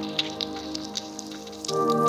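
Background music: held synthesizer-like chords with light, scattered high ticks over them, a new chord coming in near the end.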